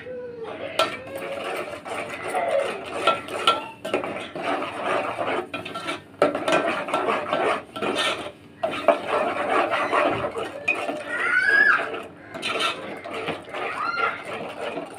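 Metal spoon scraping and clinking against the inside of a metal cooking pot while a wet onion-and-spice masala paste is stirred, with rapid irregular scrapes and taps.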